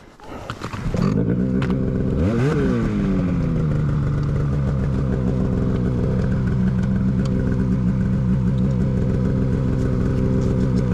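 Polaris mountain snowmobile's two-stroke engine firing up about a second in, revving up and back down once, then running steadily.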